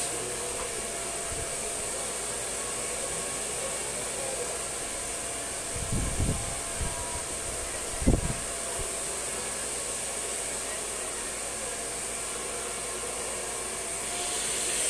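Handheld hair dryer blowing steadily while blow-drying hair. A couple of dull low thumps come around six and eight seconds in.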